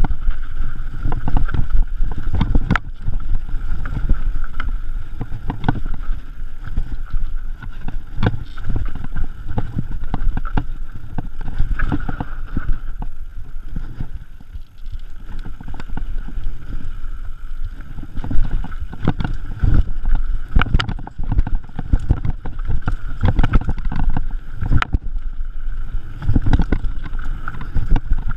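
Mountain bike descending a dirt singletrack: steady wind buffeting on the camera microphone and tyres rumbling over the dirt, with frequent rattles and knocks from the bike over bumps.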